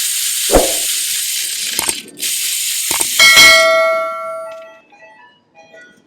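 Steady hissing, like an air tool running, with knocks and a short pause about two seconds in, while the screws of a HEMI V8's timing chain tensioner are backed out. Just after three seconds a metal part clangs and rings, fading over about a second and a half.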